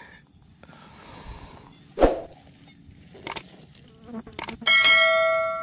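Steady high-pitched buzzing of insects in the background, broken about two seconds in by a short thump and later by a couple of clicks. Near the end an electronic chime with several steady ringing notes sounds for about a second and a half, the subscribe-button animation's sound effect, and is the loudest thing.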